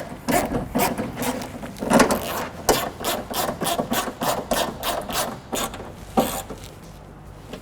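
Ratcheting hand tool driving the door-panel screws snug, a rapid run of rasping clicks about three to four a second that stops about six seconds in.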